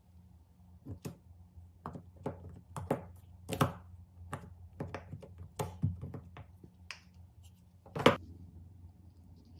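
Hands handling small toys: a string of irregular light taps and clicks, with the loudest knock about eight seconds in.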